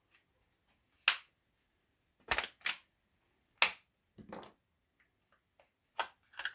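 Several sharp snaps and clicks at irregular intervals as a small component's casing is pried apart by hand to get at the parts inside.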